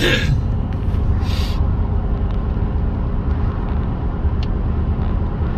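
Steady low rumble of a running road vehicle, with a short hiss at the start and another about a second and a half in.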